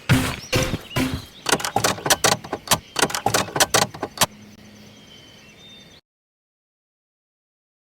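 Knocking on a door: a fast, irregular run of sharp knocks lasting about four seconds. The sound then cuts out to total silence for the last couple of seconds.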